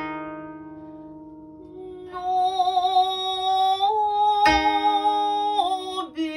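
Koto song: a koto string plucked just before rings and fades, then from about two seconds in a woman sings long, wavering held notes in the traditional sōkyoku style, with another koto note plucked partway through.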